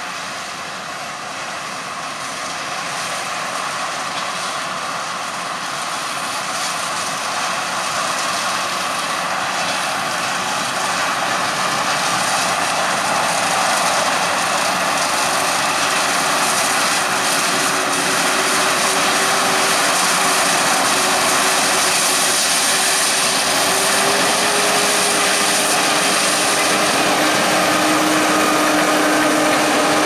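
Krone BiG X 1180 self-propelled forage harvester chopping maize, with a New Holland T7 tractor hauling the trailer alongside: a steady machine drone with a strong hiss, growing louder over the first half as the machines come closer. A steady whine comes in about halfway and drops in pitch near the end.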